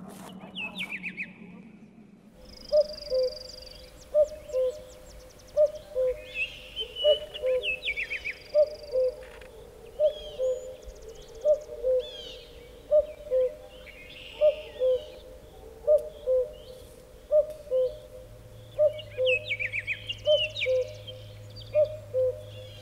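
Birdsong: one bird repeats a low two-note falling call about every second and a half, while smaller birds chirp and trill higher up.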